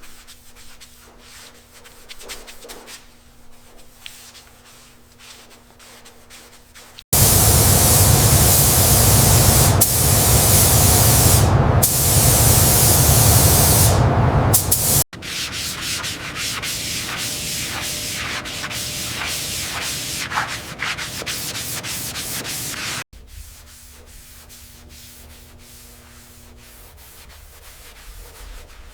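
Sanding and rubbing sounds in hard-cut segments: quieter scratchy rubbing at the start and end, a loud, even sanding noise in the middle, then a run of quick scraping strokes.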